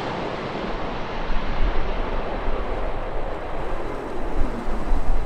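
Jet airliner's engine noise fading away after it passes close by. The hiss dies down in the first second, leaving a duller, steady rumble.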